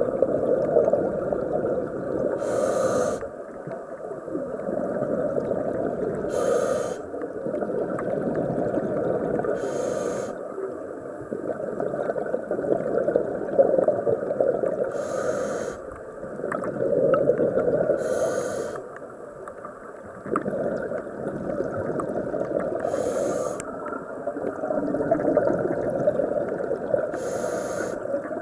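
Scuba regulator breathing recorded underwater: about seven short hissing inhalations, one every four to five seconds, each followed by a long bubbling rush of exhaled air.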